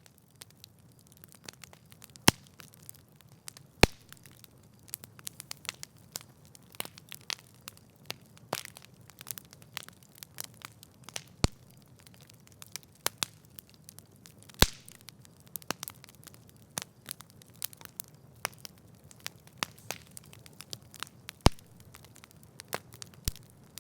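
Campfire crackling: a constant scatter of irregular pops and small snaps from the burning wood, with a few much louder sharp cracks, over a faint low hiss of the flames.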